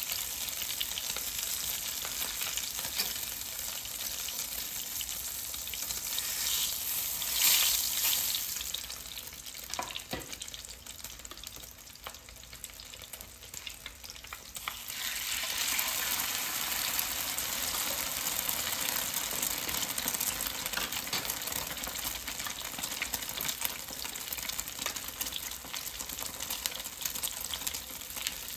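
Eggplant omelette frying in hot oil in a pan, a steady sizzle. It surges loudest about seven seconds in and falls quieter for several seconds with a couple of light taps. From about fifteen seconds in it sizzles steadily again.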